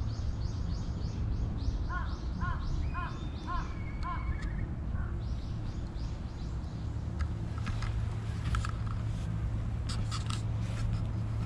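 Birds calling over a steady low outdoor rumble: a run of about six short, evenly spaced calls, roughly two a second, a couple of seconds in, and quick high chirps repeating through the first half. A few sharp clicks come near the end.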